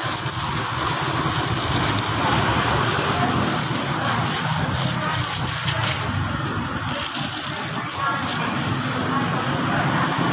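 Steady street noise: vehicle engines running in traffic, with voices in the background.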